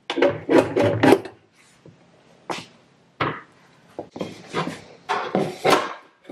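A metal bread pan is lifted out of a bread machine and the loaf is knocked out of it onto a board: a series of clattering knocks and scrapes of metal.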